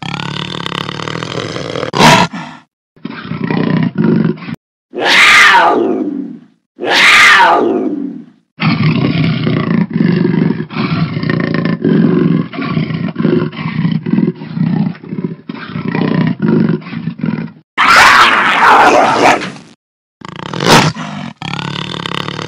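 Jaguar roaring and growling in a string of abruptly cut clips. Harsh roars fall in pitch, two close together about five and seven seconds in and another near the end. Between them runs a long series of rough grunts at about two a second.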